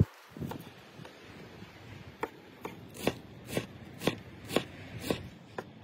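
Large cleaver-style knife chopping fresh dill and green onion on a wooden cutting board: the blade knocks on the board at a steady pace of about two chops a second, starting about two seconds in.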